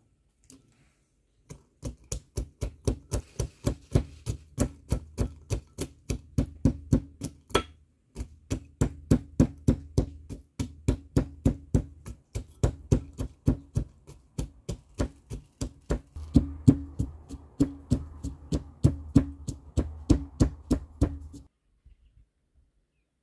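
Walnuts being pounded with a pestle in a small brass mortar: quick, even strikes about three a second, with a short pause about eight seconds in, stopping near the end.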